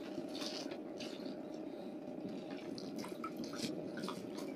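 Water dripping and lightly splashing off a fishing net as it is hauled out over the side of a wooden boat, with a landing net lifted dripping from the water. The small drips and trickles come more often in the second half.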